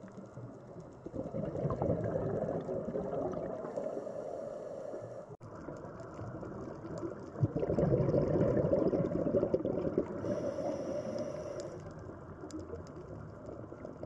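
Low, muffled rush of water, as heard underwater, swelling about a second in and louder again from about seven and a half seconds, with a brief drop-out a little past five seconds.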